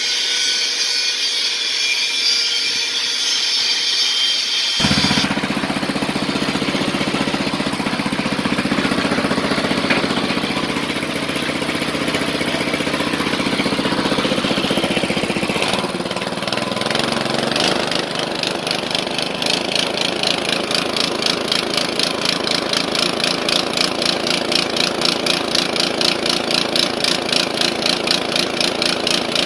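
A well-drilling rig's engine running. For the first few seconds there is a high hissing machine noise, then the sound switches abruptly to the engine's steady running note. In the last third it settles into a regular pulse of about two beats a second.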